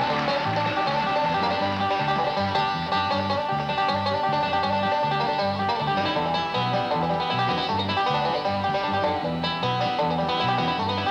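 Country-style bluegrass music: a picked banjo over a steady, bouncing bass line.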